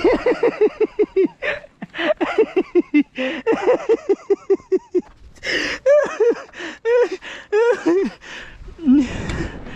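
A person's voice making a fast run of short, pitched, repeated sounds, about six a second, like rapid laughter or a string of wobbling exclamations. It pauses briefly, repeats, and then gives way to a few longer, sliding vocal sounds near the end.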